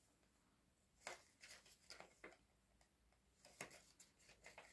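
Faint scattered ticks and paper rustles as a sticker seal is peeled off a flat parchment scroll.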